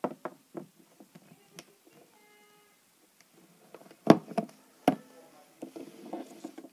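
Small plastic toy figures knocking and tapping on a tabletop as they are handled: scattered light clicks, with two louder knocks a little after halfway.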